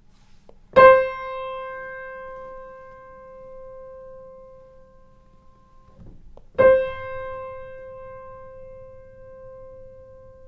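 A single grand piano note struck twice and left to ring. The first time it is played without pedals and is damped off after about five seconds. The second time the una corda (soft) pedal is down and the damper pedal is caught after the attack, so the note keeps ringing.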